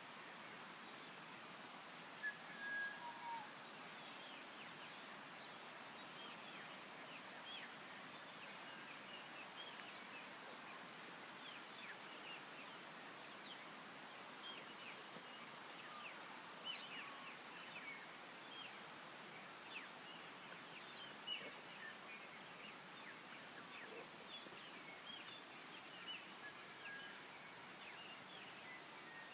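Faint background birdsong: many small birds chirping briefly here and there over a steady hiss, with one short whistled note about two seconds in.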